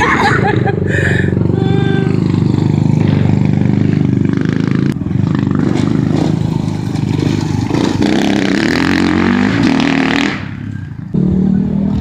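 Dirt bike engine running, its pitch rising about eight seconds in, then dropping off for about a second before picking up again.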